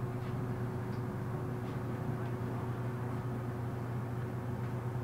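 Steady running noise of a city bus, heard from inside as it drives: a constant low hum with a faint, even tone above it.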